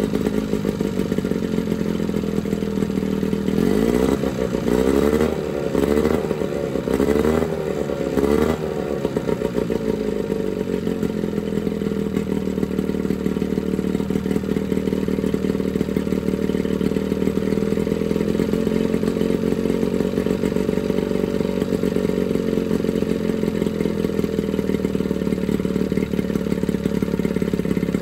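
Johnson 9.9 two-stroke outboard motor running on a stand after a carburetor rebuild and new spark plugs. Its pitch rises and falls several times about four to eight seconds in as the throttle is blipped, then it settles to a steady run.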